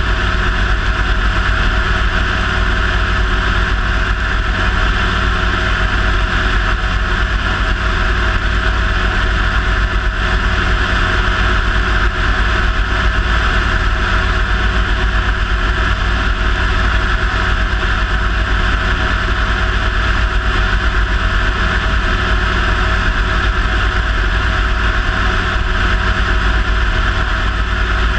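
CH-7 Kompress ultralight helicopter in steady low-level flight: its engine and rotor run at a constant pitch with a heavy low drone, heard close up from a camera on the landing skid.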